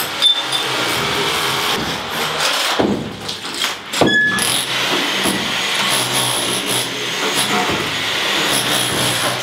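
Demolition power tools running steadily on a tiled wall: an electric rotary hammer chiselling off ceramic tiles, then an angle grinder cutting metal, with a sharp knock about four seconds in.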